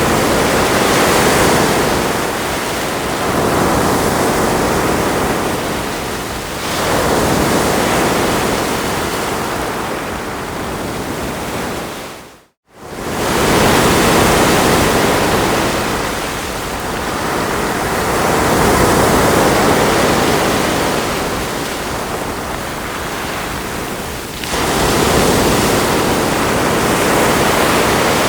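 Ocean waves washing onto a shore, each swell rising and falling away every four to six seconds. About halfway through the sound cuts out abruptly for a split second, then returns.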